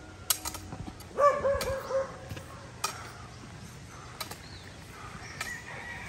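An animal's short call with a wavering, pulsing pitch about a second in, lasting just under a second, with a few sharp clicks before and after it.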